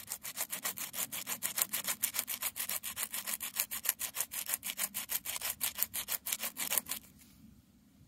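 A thin piece of deer bone ground back and forth on a flat stone to shape it, giving fast, even rasping strokes, about six a second, that stop about seven seconds in.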